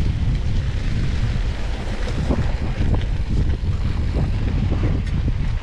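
Wind buffeting the microphone of a camera on a moving mountain bike, over the rumble of knobby tyres rolling on a rough grass-and-dirt trail, with a few knocks from the bike over bumps.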